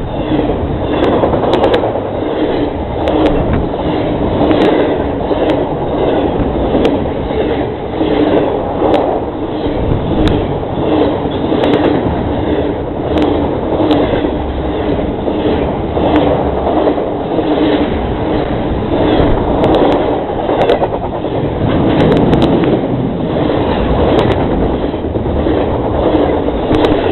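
CSX mail train's freight cars rolling past close to the track: a loud, steady rumble of steel wheels on rail, with a regular clickety-clack as the wheel sets cross rail joints.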